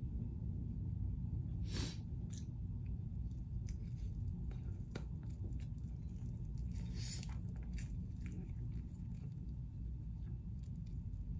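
A person eating buffalo wings close to the microphone: bites and wet chewing with small clicks, and two louder bites about two and seven seconds in, over a low steady hum.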